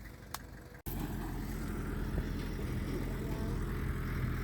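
Heavy diesel machinery engine running steadily. The sound breaks off abruptly less than a second in, then comes back louder and steady.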